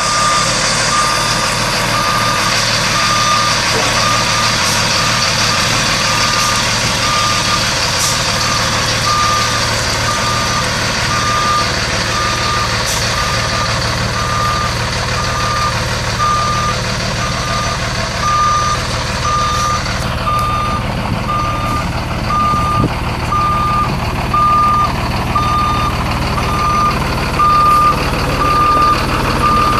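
Backup alarm on a Freightliner M2 service truck beeping steadily, about one high beep a second, as the truck reverses. Under it the truck's Mercedes-Benz MBE 900 7.2 L inline-six diesel is running with a steady low rumble.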